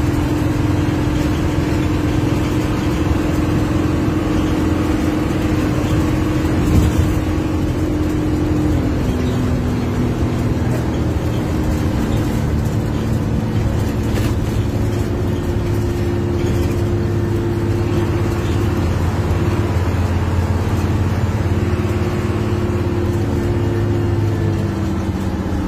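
Hino 1J bus engine running at highway speed, heard from inside the cabin. Its pitch drops about nine seconds in and climbs again a few seconds later. A single thump comes about seven seconds in.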